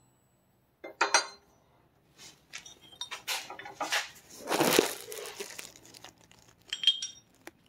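Steel engine parts and press fixtures clinking and clattering as a piston's connecting rod is handled and set down on a metal press table. A ringing clink comes about a second in, a longer scraping clatter follows around the middle, and another ringing clink comes near the end.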